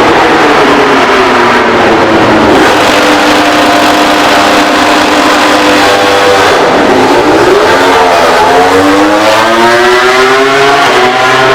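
MotoGP racing motorcycle's 1000 cc four-stroke engine held at steady revs on launch control, then dipping briefly about seven seconds in as the bike launches, and rising steadily as it accelerates away.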